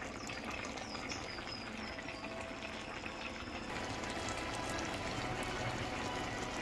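Chicken curry simmering in a kadhai, the masala gravy bubbling with a steady wet hiss that gets a little brighter about four seconds in.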